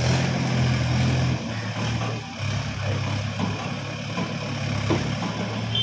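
Mahindra 585 DI XP Plus tractor's four-cylinder diesel engine running under load as it pulls a trolley fully loaded with bricks; the engine note drops about a second in and picks up again a second later.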